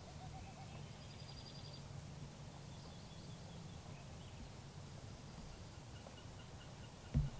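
Faint songbird trills, short runs of rapid high repeated notes, over quiet outdoor background with a low hum, and a single sharp thump near the end.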